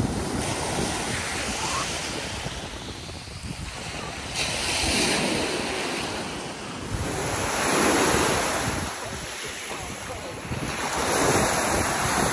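Waves washing onto the shore, swelling and receding in surges every few seconds, with wind rumbling on the microphone.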